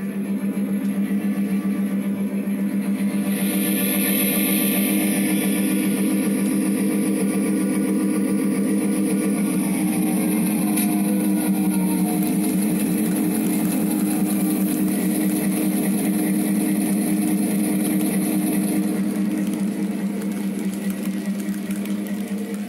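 A model train running past: the diesel locomotive's motor and the cars' wheels on the track make a steady hum, with a high hiss through most of the passage that drops away near the end.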